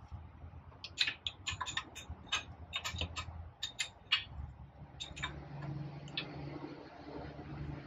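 Light, irregular clicks and taps, several a second for about three seconds and then a few spaced out, as a split gland ring seal is pushed down by hand around the shaft into the packing bore of a Berkeley 12JG jet pump housing. A faint steady hum sets in about halfway through.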